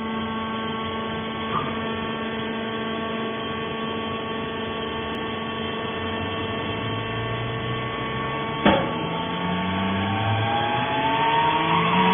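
Fiber baling machine running with a steady machine hum. There is a light knock, then a loud clank about two-thirds through, after which a rising whine climbs in pitch as a motor speeds up.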